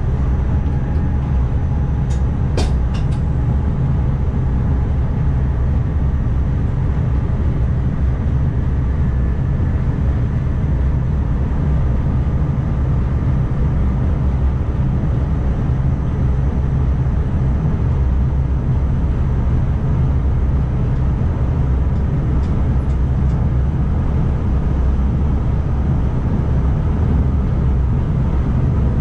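Steady low running rumble inside the driver's cab of an NS ICMm (Koploper) electric intercity train, with a few sharp clicks about two to three seconds in.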